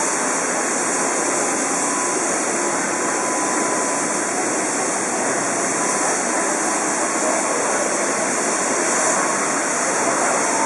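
DR class 65.10 steam tank locomotive, standing still, giving off a steady, even hiss of escaping steam.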